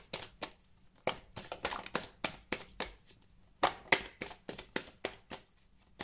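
A deck of oracle cards being shuffled by hand, overhand: a quick, irregular run of soft card clicks and slaps, with a couple of louder slaps about two-thirds of the way through.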